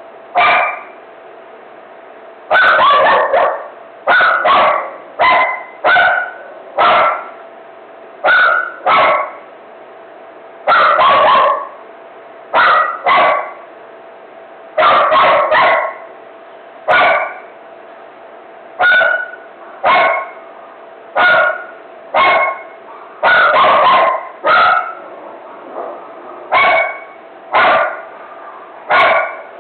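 A dog barking over and over in a frenzied run, single barks and quick doubles and triples coming every second or two.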